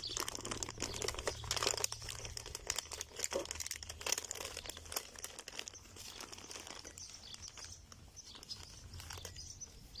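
Plastic film crinkling and crumpling as it is peeled off a pot and bunched up by hand. The crackling is busiest over the first half and thins out toward the end.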